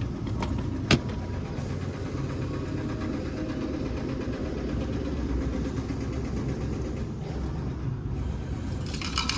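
A steady low mechanical rumble, like a car running, with one sharp click about a second in and a brief rustling near the end.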